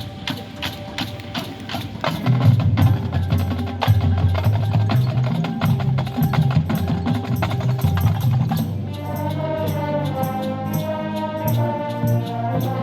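Marching band playing: a steady clicking percussion pattern at about four beats a second, joined about two seconds in by low brass and drums, then near the end a sustained chord from the horns and winds.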